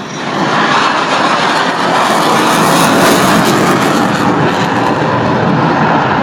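F-16 fighter's single jet engine, loud and steady, swelling about half a second in as the jet passes low and pulls up into a steep climb.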